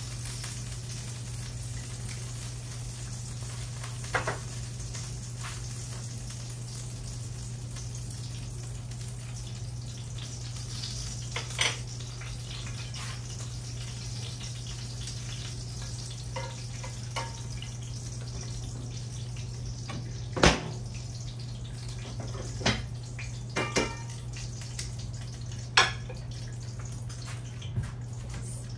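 Country fried steaks frying in oil in a pan, a steady sizzle over a constant low hum, broken by several sharp clinks and knocks of a utensil against the pan.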